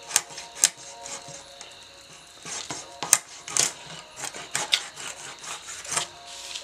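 A bhetki fish being scaled against a boti blade: irregular rasping scrapes as the scales are stripped off, with a few sharper strokes standing out.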